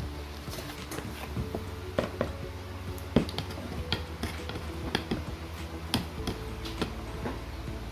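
A small scoop scraping and knocking against a plastic pot and a clear plastic jar as soil is dug out and tipped in, heard as irregular clicks and taps, with soil pattering into the jar.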